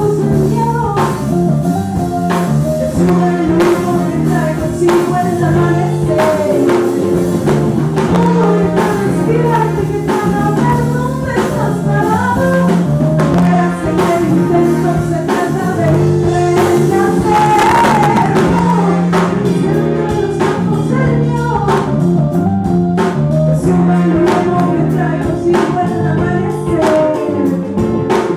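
Live soul-folk band playing a song: a woman sings the lead melody over electric bass and a drum kit keeping a steady beat, with a cymbal crash about two-thirds of the way in.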